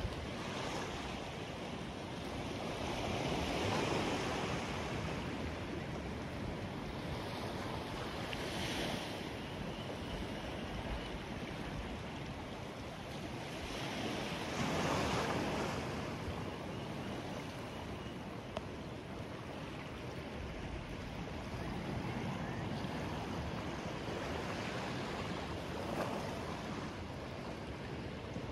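Small waves washing at the water's edge, with wind blowing on the microphone: a steady wash that swells louder several times, most strongly a few seconds in and about halfway through.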